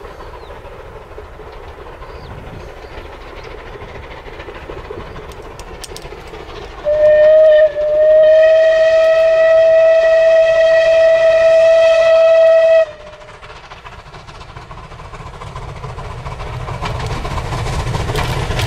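Steam whistle of Merchant Navy class Pacific locomotive 35006 sounding one short blast and then a long blast of about five seconds, over the rumble of the approaching train. The train noise grows louder near the end as the locomotive draws close.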